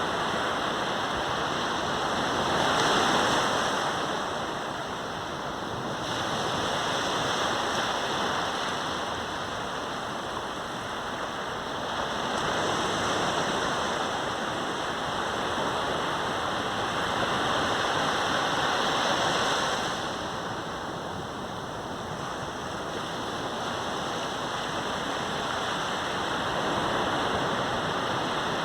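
Sea waves breaking and washing up a sandy beach: a steady rush of surf that swells louder and falls back every several seconds.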